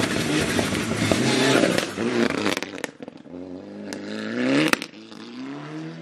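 Mitsubishi Lancer Evo VI rally car at full throttle on a gravel stage: loud engine and tyre noise as it goes by, then the revs climb steeply, break off briefly near the end for a gear change, and climb again. A few sharp cracks are heard in the middle.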